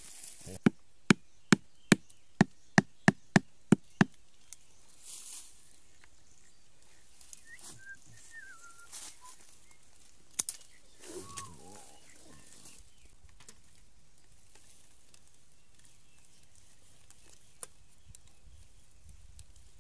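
Rapid series of about nine sharp chopping strokes on wood, roughly two and a half a second, stopping about four seconds in. After that, faint rustling and a couple of brief chirps.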